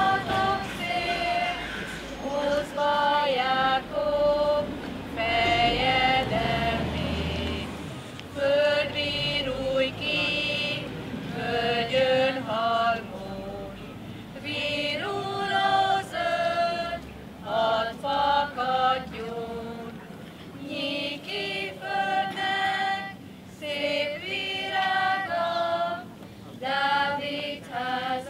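Choir of schoolchildren singing an Advent song, high voices in short phrases of held notes with brief pauses between them.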